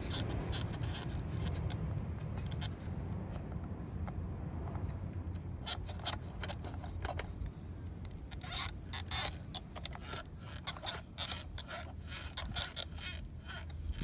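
Pliers scraping and clicking against the plastic and metal of a Subaru fuel pump assembly as it is handled, with a run of sharp clicks from about halfway through, over a steady low rumble.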